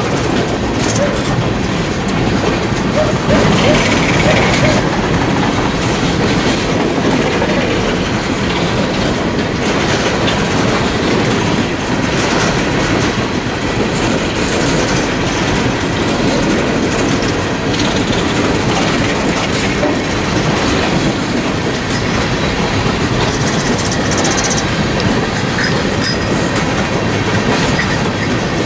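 Coal cars of a unit coal freight train rolling past: a steady rumble of steel wheels with clickety-clack over the rail joints. A brief high wheel squeal comes a few seconds in.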